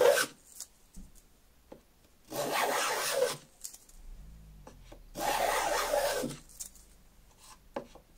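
Small brass thumb plane with a tool-steel blade, its sole waxed with paraffin, cutting curled shavings along the edge of a board of utile: two strokes of a little over a second each, a couple of seconds apart, with the tail of another stroke right at the start.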